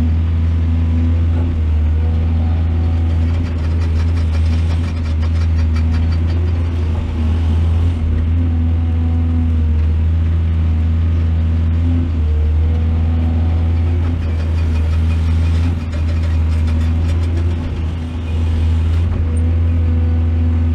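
Heavy diesel engine of an excavator running steadily under load, its pitch dipping and rising every few seconds, with two stretches of rattling clatter.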